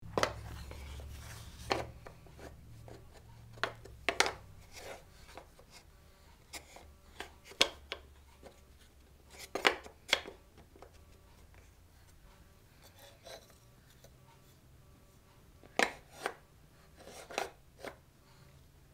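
Irregular wooden clacks and knocks of peg puzzle pieces handled and set into a wooden puzzle board, about a dozen sharp taps with uneven gaps.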